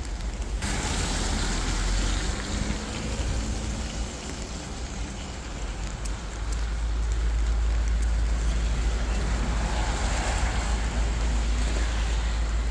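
Rain on a city street with traffic: a steady hiss of rain and tyres on wet pavement, with a deeper rumble setting in and the sound growing louder about halfway through.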